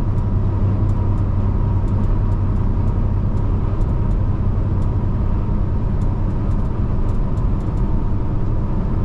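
Semi truck engine and road noise in a steady low drone while driving.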